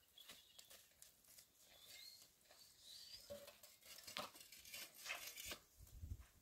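Near silence: faint outdoor room tone with scattered soft clicks and light handling rustles.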